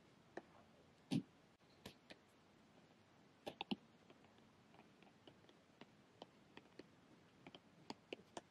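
Apple Pencil tip tapping and clicking on the glass of an iPad screen during handwriting: faint, irregular taps, with a louder knock about a second in and a quick cluster of taps a little past the middle.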